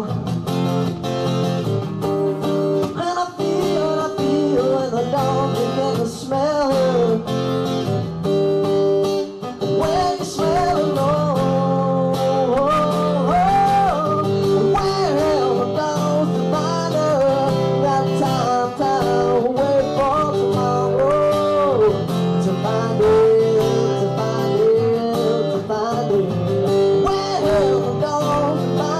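Live acoustic blues-style music: an acoustic guitar playing steady chords under a lead melody that bends and slides in pitch.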